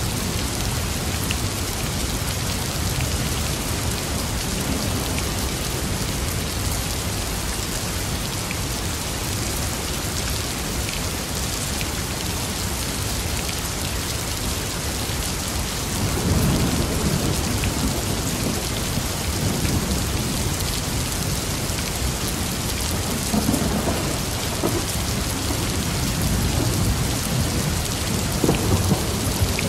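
Thunderstorm: steady rain with rolls of thunder. A low rumble comes in about halfway through, another about two-thirds in, and more rumbling builds near the end.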